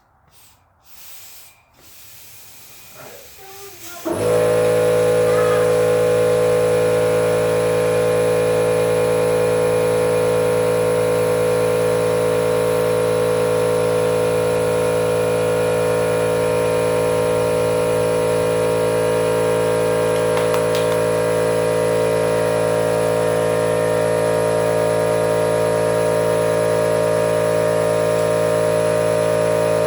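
Electric air compressor kicking on about four seconds in and running steadily with a loud, even droning hum, refilling its tank after air has been drawn off through the blow wand.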